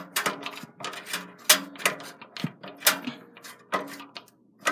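Hand screwdriver working motherboard screws into a PC case, making irregular sharp metallic clicks and taps, several of them loud.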